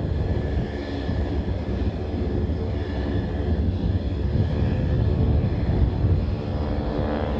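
Aircraft engine noise: a steady, deep rumble that swells a little toward the end.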